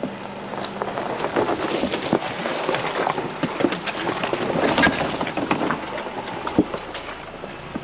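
Ford Bronco driving slowly over a rough trail: a dense, irregular clatter of small crunches and knocks from the tyres working over the ground.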